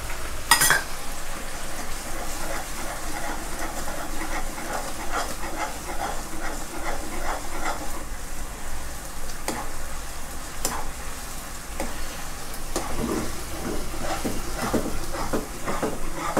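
Thick chili-garlic sauce bubbling and sizzling in a nonstick pan as it simmers down to thicken, with a metal spoon stirring and scraping through it. A few sharp clicks of the spoon against the pan, one near the start and several later on.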